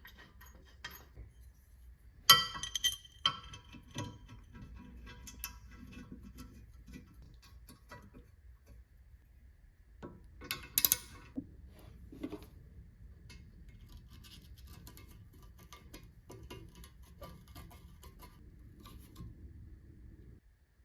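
Metal parts clinking and ringing as they are handled and set down. There is a cluster of sharp clinks about two to four seconds in and another around eleven seconds, with quieter handling noise between.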